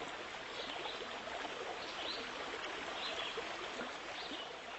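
Steady rushing of running water, like a stream, with a short high chirp about once a second.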